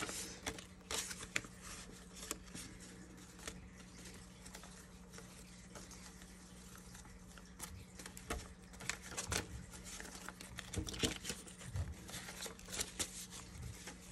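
Paper banknotes being counted by hand: bills rustling and flicking one after another, sparse at first and busier in the second half. A faint steady hum runs underneath.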